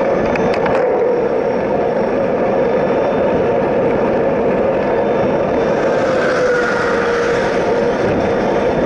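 Steady rush of wind and road noise from riding along a highway shoulder beside a rolling freight train. About six seconds in, a tractor-trailer passes, its tone dropping slightly as it goes by.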